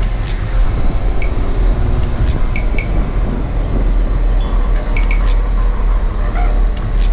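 Jeep Rubicon crawling over rocky dirt with a low, steady engine rumble, and sharp metallic clinks and rattles every second or so, some in quick clusters.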